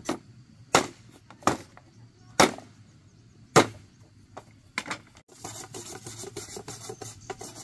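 A long knife chopping into a green bamboo pole: four sharp, loud strikes about a second apart, then a few lighter knocks as the pole is cut through. From about five seconds in, softer rattling and clicking as the cut bamboo is handled and lifted.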